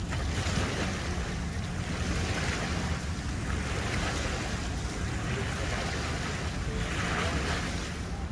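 Small waves washing against a concrete boat ramp in surges about every one and a half to two seconds, over a steady low rumble.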